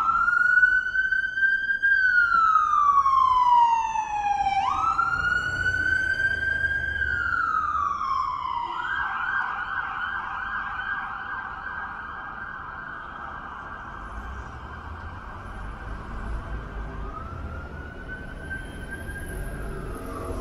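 Emergency vehicle siren starting suddenly with two slow wails, each rising then falling in pitch. About nine seconds in it switches to a fast yelp that grows gradually fainter.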